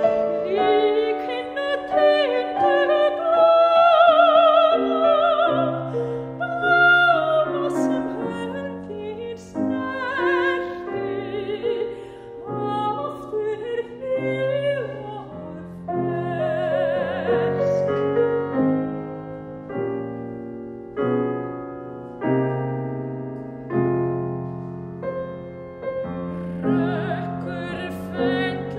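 A soprano sings a classical art song with vibrato over grand piano accompaniment. About ten seconds in the voice stops and the piano plays chords alone, and the singing comes back near the end.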